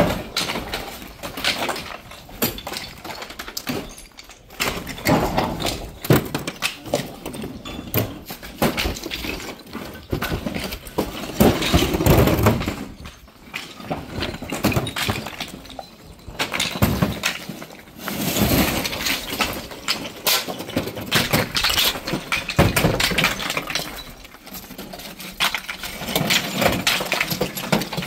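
Pieces of natural stone cladding clattering as they are thrown off a truck bed onto a pile, an irregular run of stone-on-stone clinks and knocks with denser bursts of clatter where several pieces land at once.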